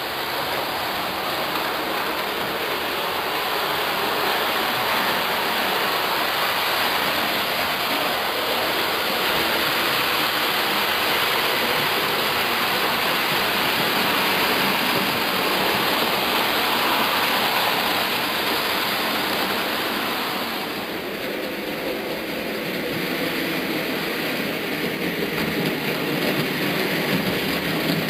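OO scale model trains running on the layout: a steady rushing rumble of small electric motors and metal wheels rolling on the track. It drops a little in level and changes character about three quarters of the way through.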